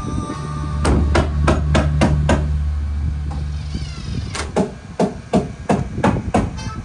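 Hammer blows on deck boards: a run of about six quick strikes, roughly three a second, then after a pause a second run of about eight.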